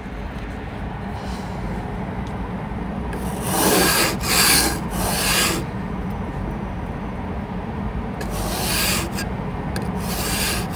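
A handheld car snow brush and scraper is swept over the car to clear snow, in rough brushing strokes. There is a group of three about three seconds in, and more from about eight seconds on.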